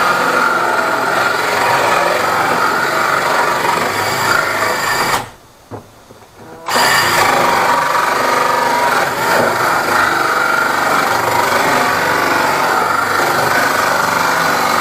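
Cordless drill running hard in two long runs, stopping for about a second and a half about five seconds in.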